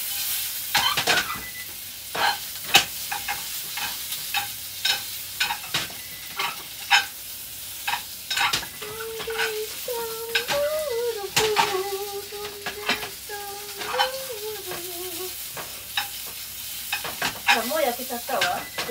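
Food sizzling in a frying pan while a rubber spatula stirs and scrapes through it in irregular strokes.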